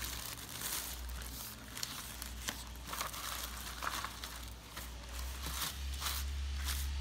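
Thin plastic freezer bag crinkling and rustling in irregular bursts as it is handled and a sheet of paper is slid inside it, over a steady low hum that grows louder near the end.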